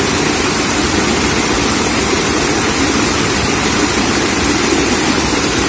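A small stream cascade rushing steadily over rocks, with white water churning below the drop.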